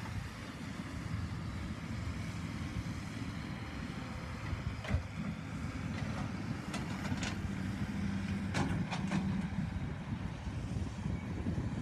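Diesel engines of a hydraulic excavator and dump truck running steadily at a distance, a low rumble, with a few sharp knocks about halfway through.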